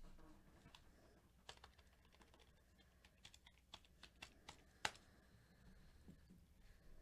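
Faint typing on a computer keyboard: a run of irregular key clicks in the middle of the stretch, the loudest about five seconds in.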